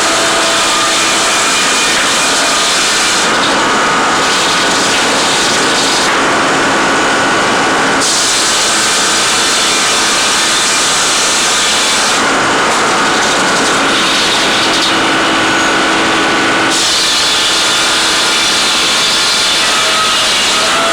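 Tree-cutting machinery running with steady engine and sawing noise, changing abruptly every few seconds.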